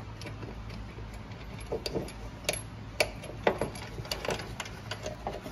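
Scattered light metallic clicks and clinks of a bolt and washer being handled and fitted into a steel sway bar link bracket on the car's frame, over a steady low hum.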